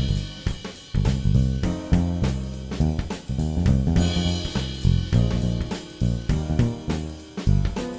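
Background music with a steady drum-kit beat, bass and guitar.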